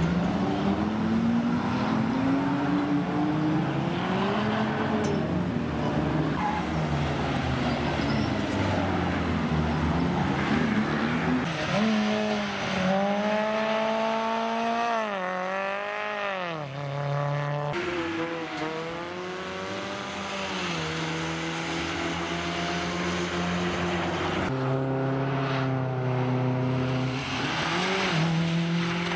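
Rally car engines revving hard on a wet track, one car after another, the pitch climbing and dropping with throttle and gear changes over a hiss of tyres on standing water. The cars are a BMW 3 Series sliding round cones, a Fiat Cinquecento and a Mitsubishi Lancer Evolution, with abrupt changes from one car to the next.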